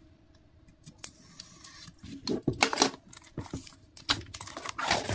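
Hands handling merchandise packaging: scattered light taps, clicks and rustles, quiet for the first second and busiest about halfway through and again near the end.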